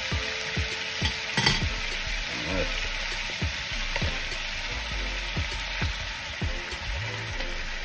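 Pan-seared sea scallops sizzling steadily in butter and white wine, with pops and crackles, and metal tongs clicking against the pan, once sharply about a second and a half in.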